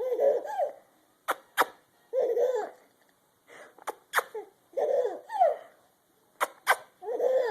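A baby laughing in short, high bursts, four times, each set off by a pair of sharp popping noises that his mother makes to amuse him.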